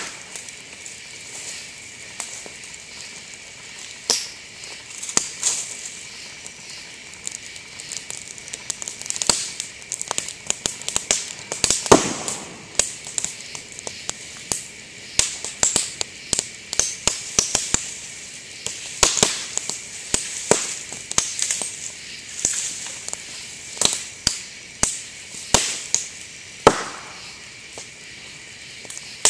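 Burning bamboo in a campfire crackling with frequent sharp pops and bangs as sealed bamboo segments burst in the heat. The pops come irregularly, several a second at times, with the loudest bangs about twelve seconds in and again near the end.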